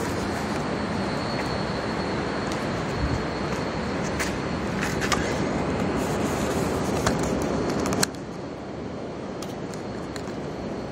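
Steady outdoor city traffic noise, with a few sharp clicks; the noise drops suddenly about eight seconds in.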